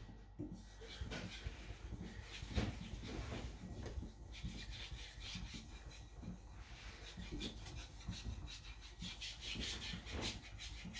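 Niolox-steel nakiri blade being stroked on a wet Naniwa Professional whetstone: a run of short, repeated scraping strokes, worked behind the edge and at the edge to blend a convex bevel.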